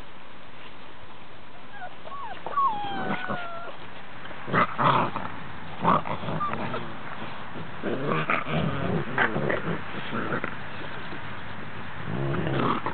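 Cane Corso puppies play-fighting: a few thin, high whines, then short growls and yaps in quick bursts.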